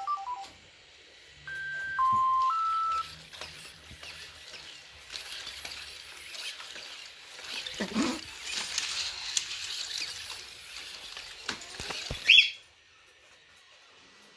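Sony Aibo robot dog sounding a short three-note electronic tone phrase (high, low, middle), then servo motors whirring with plastic clicks and knocks as the robot moves. A sharp rising electronic chirp comes near the end.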